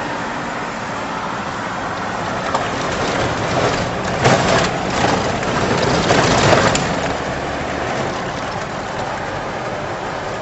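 Road and engine noise heard inside a moving car: a steady rushing hiss, which swells louder about four seconds in for roughly three seconds, then settles back.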